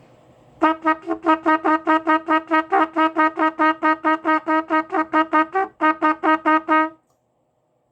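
Trumpet playing a fast run of tongued repeated notes on one pitch, about six attacks a second, stopping suddenly near the end. The tonguing is not clean, with some choppage in the articulation.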